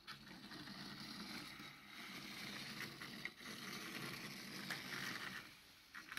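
Small plastic Tut Tut toy reindeer pushed along a laminate floor, its wheels rolling with a steady noise that fades near the end.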